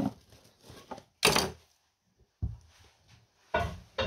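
A kitchen knife cutting through a cucumber and knocking on a granite chopping board: four sharp knocks, about a second apart.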